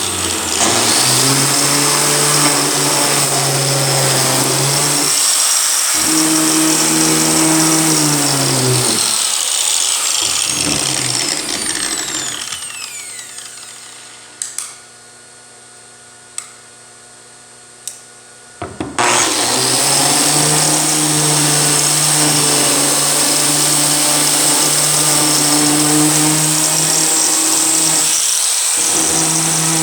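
Matebo electric grinder with a four-bladed cutter head running at high speed while grinding raised plugs and patches down flat. Its tone shifts as it bites under load. About twelve seconds in it is switched off and winds down with a falling whine. After a few light clicks it starts up again and runs steadily.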